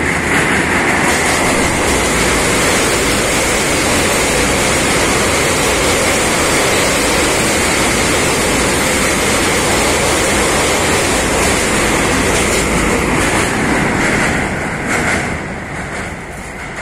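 Passenger train passing close by at speed over a steel truss railway bridge: a loud, steady rumble and rattle of wheels on rails and girders that fades from about 14 seconds in as the train moves away.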